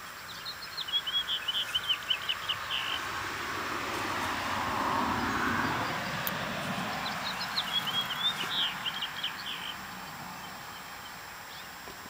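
A songbird singing two quick phrases of rapid high chirping notes, each about three seconds long, near the start and again past the middle. Between them a broad rush of noise swells and fades.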